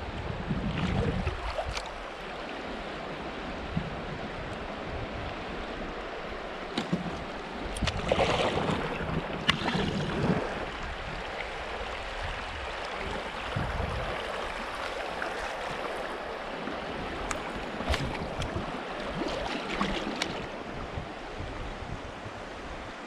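Fast river current rushing and splashing around a fishing kayak as it drifts through choppy water, with a louder surge of splashing about eight seconds in. A low wind rumble on the microphone fades after the first couple of seconds.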